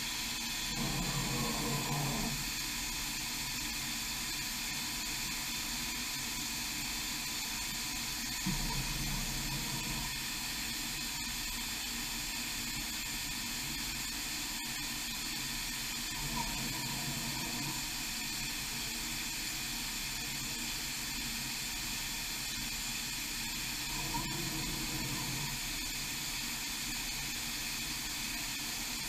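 Steady hiss inside a Huron KX30 five-axis machining centre, broken four times, about every seven to eight seconds, by a short low hum as the tilting rotary table's axes move between measuring positions.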